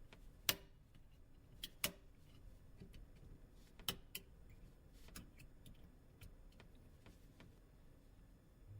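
Faint, irregular sharp clicks and ticks of a metal dental tool prying at the metal PMIC shielding lid on a phone's circuit board.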